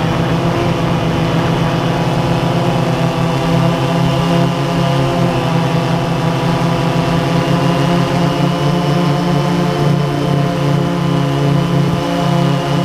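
DJI Phantom quadcopter's motors and propellers, heard from the camera mounted on it: a steady hum made of several tones, shifting slightly in pitch as it flies.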